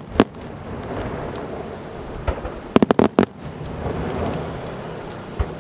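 Aerial fireworks shells bursting during a high-altitude fireworks display. There is a sharp bang just after the start and a rapid cluster of four or five bangs about three seconds in, over a continuous rumble.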